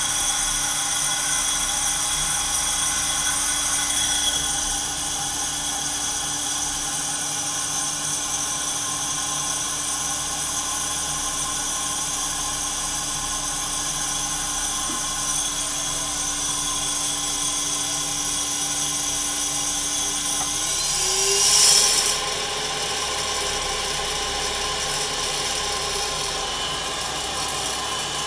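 Santoker Q5 coffee roaster running, a steady machine hum with several whining tones. About 21 seconds in, one tone rises in pitch as the machine speeds up, with a brief loud hiss of rushing air just after.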